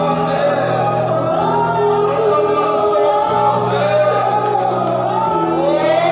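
Gospel worship song: several voices singing together over an accompaniment of held low notes that change about every two seconds.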